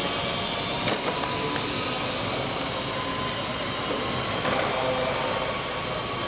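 Wheeled trolley being pushed across a hard hall floor, a steady rolling rumble. Under it runs the faint, slightly wavering whine of the RC model Airbus A310's motors, with a sharp click about a second in.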